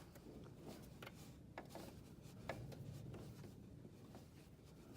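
Near silence with a few faint clicks and a light scraping of metal, as the clutch line fitting is threaded by hand onto the clutch master cylinder.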